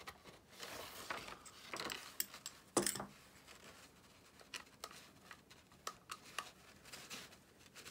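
Sheet of paper rustling and crinkling where it is caught in an RC car's motor pinion gear to set gear mesh, with light clicks of a hex driver and plastic parts being handled. The sharpest click comes about three seconds in, and it is fainter after that.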